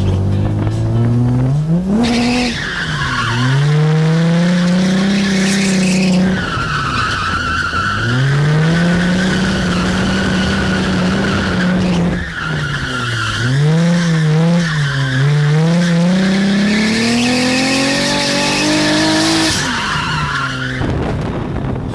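Drift car's engine revving hard with its tyres squealing through three long slides, heard from inside the car. Each time the revs climb and hold high under a continuous tyre squeal, then dip briefly before the next slide; the squeal stops near the end.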